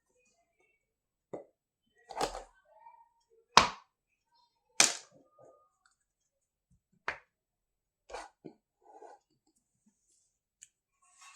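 Small toy kitchen pieces being handled and set down on a hard surface: about seven separate sharp taps and clicks, a second or two apart, with quiet between.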